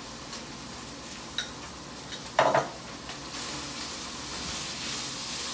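Chicken frying in oil in a frying pan, sizzling steadily, as garlic and onion are spooned in and stirred, with a few light spoon clicks and one louder clink about two and a half seconds in. The sizzling gets louder about three seconds in.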